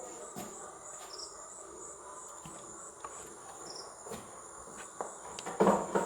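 Steady high-pitched chirring of crickets, with a few faint clicks and a loud knock near the end.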